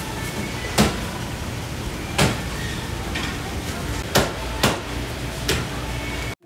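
A butcher's cleaver chopping through whole fish on a cutting board: about five heavy, sharp chops at uneven intervals.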